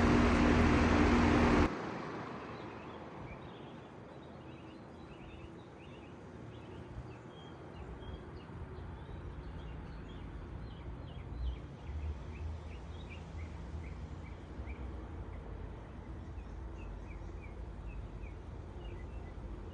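Outdoor air-conditioning condenser unit running with a steady hum that cuts off suddenly about two seconds in, its fan noise dying away over the next couple of seconds: the unit shutting down. Afterwards birds chirp repeatedly.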